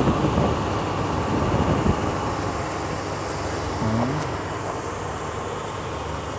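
A motor vehicle running, a steady low rumble that is slightly louder in the first two seconds.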